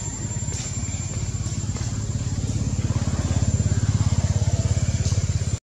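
A small engine running with a fast, even low pulse, growing louder about three seconds in and then cutting off suddenly, with a thin steady high tone above it.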